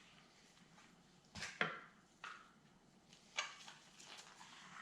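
A few faint, short knocks and clicks of kitchen work as limes are prepared for juicing, the loudest a pair about a second and a half in.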